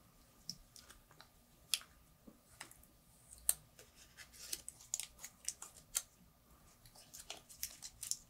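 Plastic protective wrap being peeled off a smartwatch case: a faint run of small crinkles and clicks, thickest in the middle.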